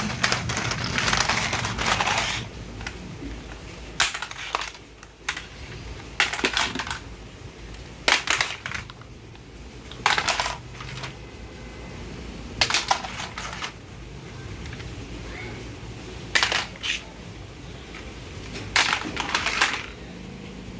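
Toy gun firing in short rattling bursts: a dense volley in the first two seconds, then a brief burst roughly every two seconds.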